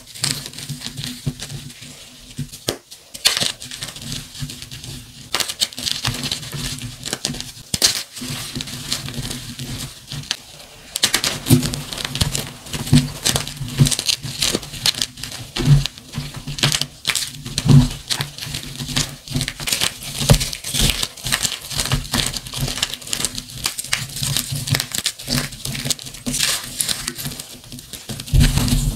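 Bare hands crushing and crumbling pieces of gym chalk, dyed and plain, in a dense run of powdery crunches and crackles. The crunching grows louder and busier about a third of the way in.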